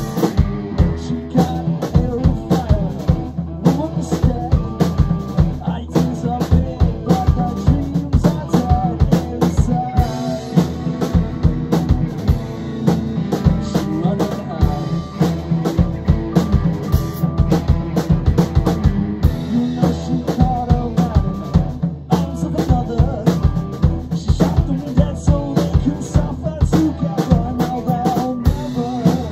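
A rock band playing live with electric guitars over a drum kit keeping a steady kick-and-snare beat.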